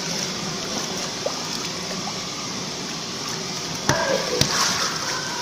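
Water sloshing against an inflatable water-walking ball as a person crawls inside it: a steady rushing noise, with a couple of sharp knocks about four seconds in.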